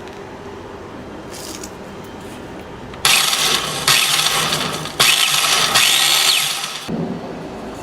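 A motor-driven machine running with a rough sound from worn bearings, which the owner suspects may be in the motor bearings too. About three seconds in it gets much louder and harsher, breaks off for a moment near five seconds, then drops back about seven seconds in.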